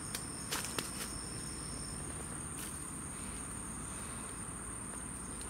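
Steady high-pitched insect song, with a second, lower insect note stopping about two seconds in and a few faint clicks.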